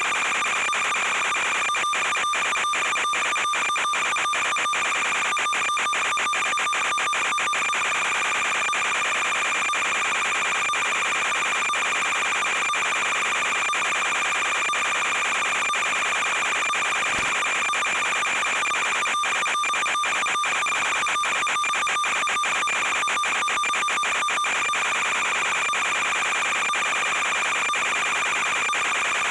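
A steady electronic buzz with fixed high whining tones from the quadcopter's FPV video-link audio. It is broken by rapid crackly dropouts in two stretches, a few seconds in and again about two-thirds of the way through. The pitch does not change with the flying.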